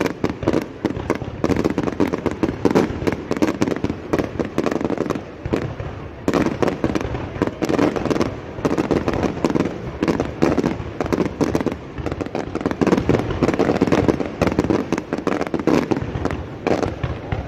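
Fireworks display: a rapid, continuous run of shell bursts, bangs and crackling with no real pause.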